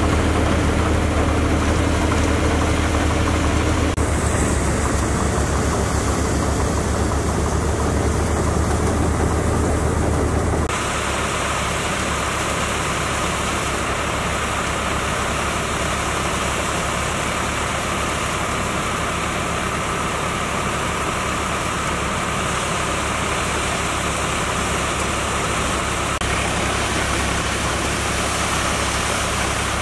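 Tractor-driven paddy thresher running steadily: the tractor's diesel engine and the spinning thresher drum make a continuous drone as straw is fed in. The tone shifts abruptly twice, about four and eleven seconds in.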